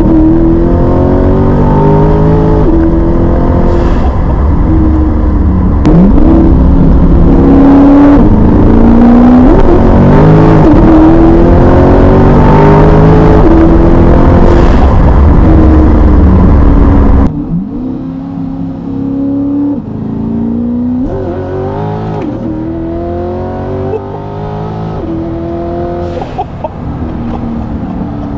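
Lingenfelter twin-turbo 427 LT2 V8 in a C8 Corvette under hard acceleration, heard from inside the cabin: the engine note climbs in pitch and snaps down at each quick upshift, several times in a row. About two-thirds of the way through it becomes markedly quieter, with more climbs and shift drops after that.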